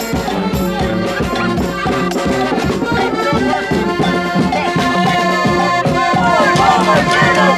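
Music with a steady beat and held instrument notes, with voices over it.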